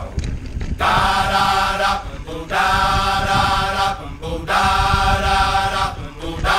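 Background music with chanting, choir-like vocals holding about three long notes, each broken off before the next begins.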